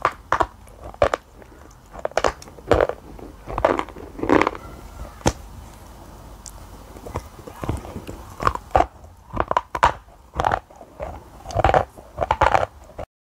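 Close-mic biting and chewing of a brittle white chalky slab: irregular sharp cracks as pieces snap off, with crunching between, cutting off abruptly near the end.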